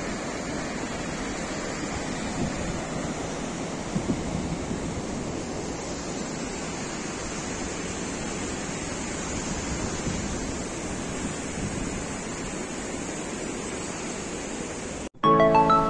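Steady rushing of a fast, whitewater mountain river over rocks. It cuts off abruptly near the end, and music begins.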